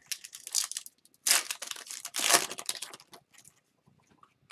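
Foil wrapper of a hockey card pack crinkling and tearing as it is opened by hand, in a few rough bursts over about three seconds.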